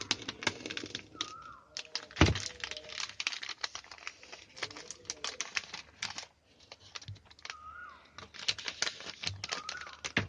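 Packaging of a USB charging cable being handled and opened by hand: a busy, irregular run of plastic clicks, crackles and rustles, with one louder knock about two seconds in.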